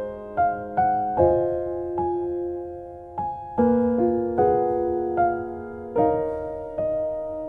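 Background solo piano music: single notes and chords struck every half second to a second and left to ring and fade.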